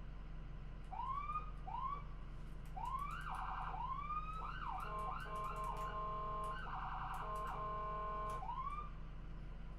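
Electronic ambulance siren switched through short patterns: two quick rising whoops, then a fast warbling yelp, held steady tones and more rapid warble, ending on another rising whoop. A low steady hum runs underneath.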